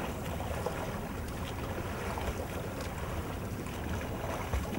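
Lake water splashing and sloshing from a swimmer's front-crawl strokes beside a kayak, over a steady low rumble.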